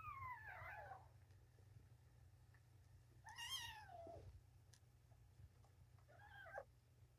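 Newborn kitten mewing: three high-pitched cries, the first rising and falling at the start, a longer one about three seconds in that slides down in pitch, and a short one near the end.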